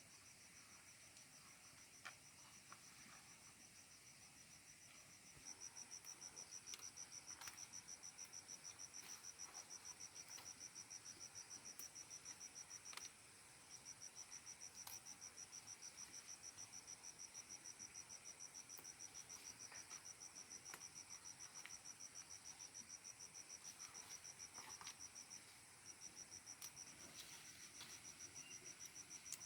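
Insects trilling: a fast, evenly pulsing high trill over a steadier, higher insect buzz. The trill grows louder about five seconds in and stops briefly twice.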